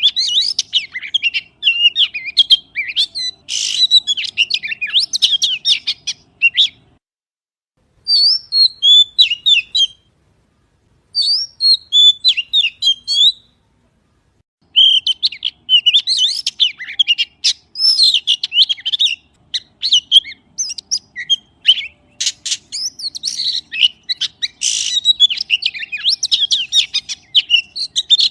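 A magpie singing: rapid, varied phrases of chirps and whistles, with short pauses about seven, ten and thirteen seconds in.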